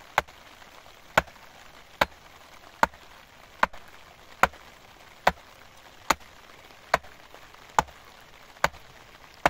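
Small hatchet chopping into a wooden plank: about a dozen sharp strikes at a steady pace, a little under one a second.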